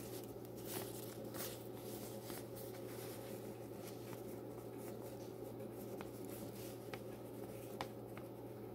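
Fingers handling braided fishing line while twisting a fisherman's knot through the ring of a lead sinker: faint rustling with a few small ticks, over a steady low hum.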